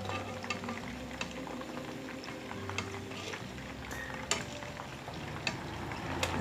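Breaded chicken pieces deep-frying in hot oil in a frying pan: a steady sizzle with scattered sharp pops of spattering oil.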